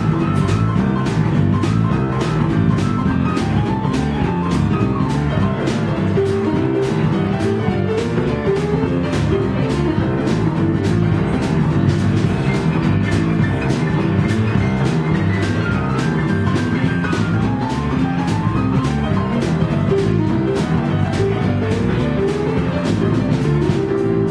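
Live blues band playing a boogie-woogie number: stage piano with electric guitar, bass and drum kit keeping a steady beat.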